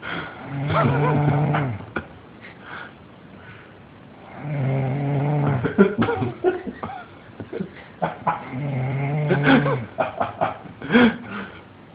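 A person snoring loudly: three long, low, rasping breaths about four seconds apart. Someone laughs in short bursts between the snores.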